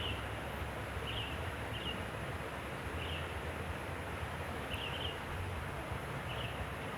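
A steady low engine rumble under outdoor noise, with short high chirps about once a second.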